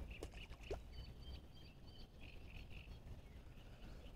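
Faint birdsong, short chirps about a second to two and a half seconds in, over a low wind rumble on the microphone. Near the start, a faint small splash as a released perch drops into the water.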